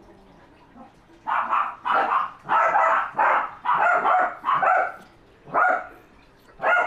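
Dog barking in a run of repeated barks, about two a second, starting about a second in, then a couple more spaced out near the end.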